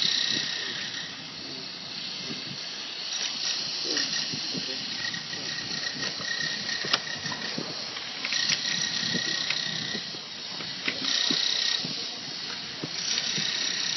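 Steady hiss with scattered small clicks as the ends of plastic sewer pipe melt during heat fusion.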